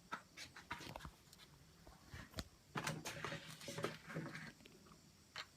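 Faint, scattered clicks and light knocks of the pistol being handled, with a faint muffled murmur in the middle.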